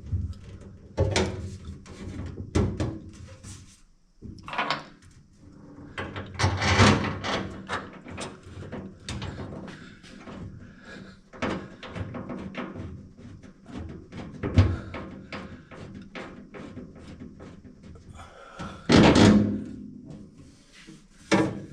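Irregular knocks, bumps and clanks of a gas tank being worked up into place under a car while its straps and bolts are fitted. The louder bangs come about seven, fifteen and nineteen seconds in.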